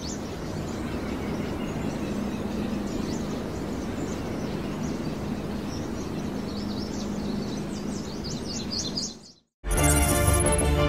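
Outdoor nature ambience of birds chirping over a steady hiss, the chirps thickest in the second half. About nine and a half seconds in it cuts out and loud music starts.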